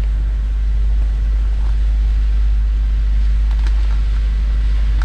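Steady low rumble of a car's engine idling, heard from inside the stopped car, with a few faint small ticks.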